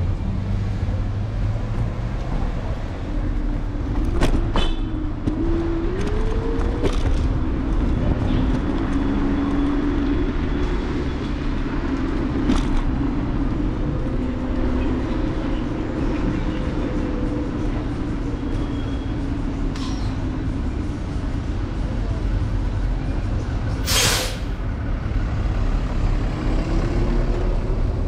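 City street traffic heard from a moving electric scooter: a steady low rumble of road and wind noise. A vehicle's engine tone rises about five seconds in and holds for a while, and a short sharp hiss comes near the end.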